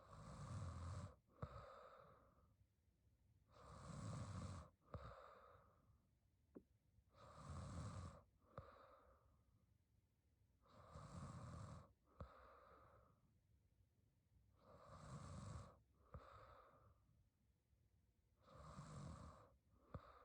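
A young woman snoring faintly in her sleep: six slow, even snoring breaths, one about every three and a half to four seconds, each followed by a brief shorter sound.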